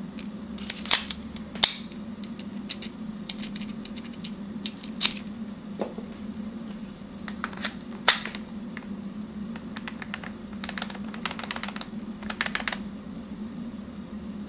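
Small hard clicks and clacks as a Surefire weapon light is fitted and clamped onto the accessory rail of a WE P226 gas blowback airsoft pistol, with a few sharper clicks and a run of rapid light ticking near the end. A steady low hum runs underneath.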